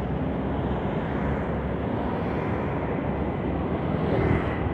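Steady road traffic noise from a busy street, with cars and motorcycles passing.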